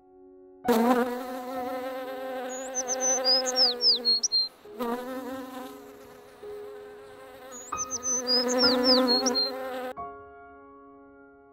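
Bumblebee buzzing in two long, wavering buzzes that start suddenly, about a second in and again near five seconds. Under them run steady held tones and a looped run of high, falling chirps that repeats about every five seconds.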